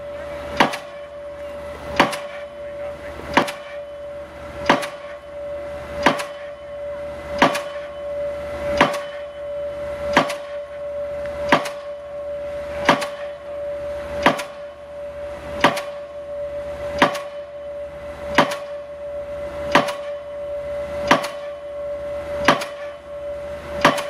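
Diesel pile hammer driving a pile: sharp, evenly spaced blows at about one every 1.4 seconds, over a steady tone and a low rumble.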